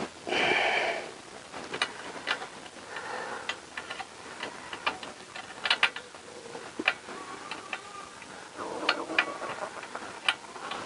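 Small metallic clicks and taps of a nut being threaded by hand onto an exhaust header stud at the flange of a 4-into-1 header on a Honda CBR1000F, irregular and scattered throughout. A short burst of rustling noise comes just after the start.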